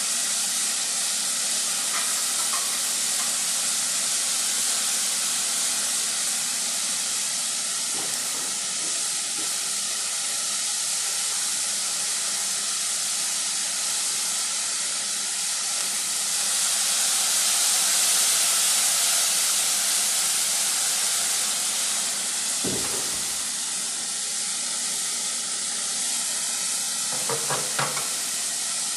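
Sausages and vegetables frying in a pan: a steady sizzling hiss. A single knock comes about two-thirds through, and a few light clicks near the end.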